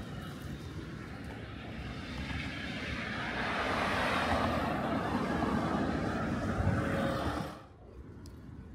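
Electric commuter train running past on the tracks, a steady rumble and rush that swells louder, then drops away suddenly near the end.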